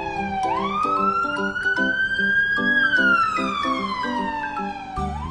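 Emergency-vehicle siren wailing, its pitch sliding slowly down, jumping back up about half a second in, easing higher and then sliding down again, starting to rise once more near the end. Children's background music with a steady beat plays underneath.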